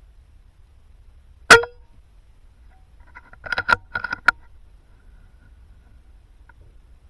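AirMaks Krait air rifle firing once, a single sharp crack about a second and a half in. About two seconds later comes a quick cluster of metallic clicks and clacks with a slight ring.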